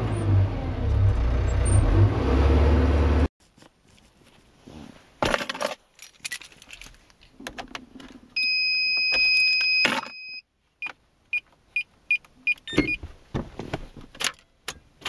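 A tractor engine running at high revs, cut off abruptly about three seconds in; then keys jangling at a car's ignition, a steady electronic warning chime for about two seconds, and a quick string of short beeps at the same pitch.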